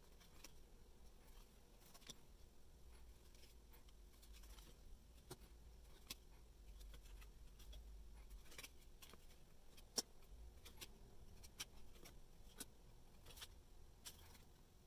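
Faint, irregular clicks and soft rustles of trading cards being flipped through and laid down by hand, with one sharper click about ten seconds in.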